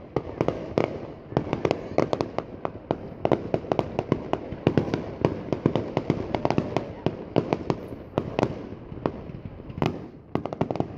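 Aerial fireworks display: a dense, unbroken run of shell bursts and crackling bangs, several a second, some much louder than the rest.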